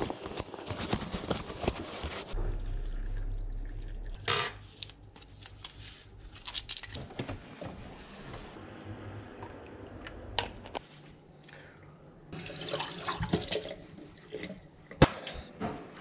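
Household handling sounds: a hissing rush at the start, a brief low hum, then scattered small clicks, knocks and clinks as things are taken from a fridge and handled, with a sharp click near the end.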